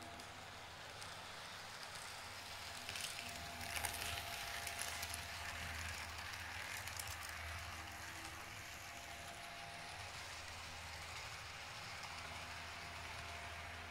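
Model railway train running on the layout's track: a faint steady rattle of wheels on rails with a low hum, growing louder with a cluster of clicks about three to five seconds in.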